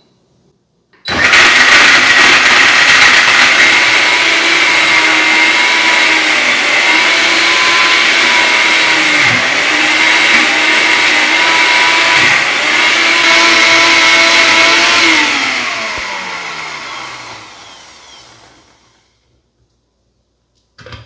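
Countertop blender with a glass jar blending dry coconut chunks in warm water: the motor starts abruptly about a second in and runs at a steady high whine, its pitch dipping briefly twice as chunks load the blades. After about fourteen seconds it is switched off and spins down, its pitch falling away over a few seconds.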